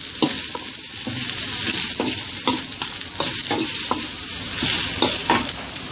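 Chopped grilled chicken with lemongrass, kaffir lime leaves and dried chilli sizzling as it is dry-fried in a stainless steel wok. A metal spatula scrapes and clinks against the pan at irregular moments as the food is turned.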